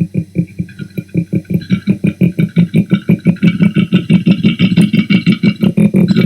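Koala bellowing: a long, deep, rasping call made of rapid, evenly repeated grunting pulses, growing louder after about a second and a half.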